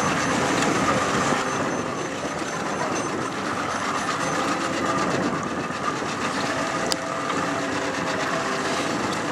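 Steady rumbling and rushing of a boat's engine running under way, mixed with wind and water noise, with faint steady whining tones in it.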